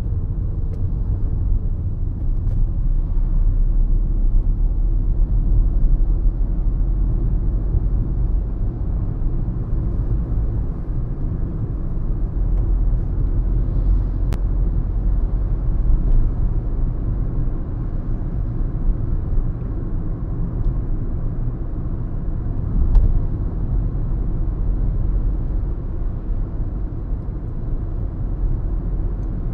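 Car interior road and engine noise while driving: a steady low rumble of tyres and engine heard from inside the cabin.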